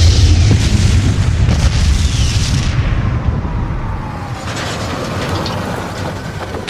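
Battle sound effects: explosions with a heavy low rumble, loud for about the first three seconds, then easing off into a lower, steady rumble with scattered crackles.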